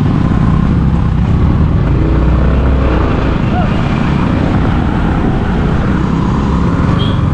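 Yamaha R15 sport motorcycle's single-cylinder engine running steadily as the bike rides along, heard from the rider's seat with a heavy low rumble.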